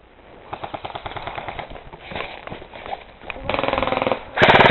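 Airsoft guns firing full-auto in several rapid bursts of fast, evenly spaced shots, the last burst near the end being the loudest.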